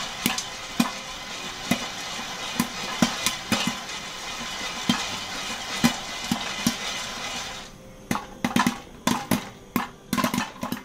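Popcorn kernels popping inside a covered aluminium pot, heard as irregular sharp pops. For the first seven to eight seconds they come over the steady swish and rattle of the pot being shaken on the burner to keep the corn from burning. After that the pot is still and the popping goes on alone.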